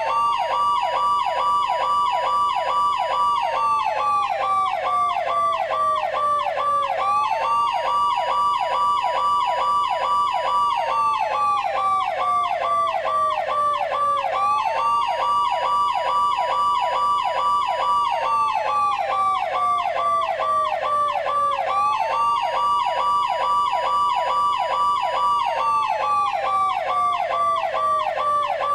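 Machine RS police-car siren sound effect: a slow electronic wail that rises quickly, holds, then falls slowly, repeating about every seven seconds, layered over a fast, rapidly repeating warble.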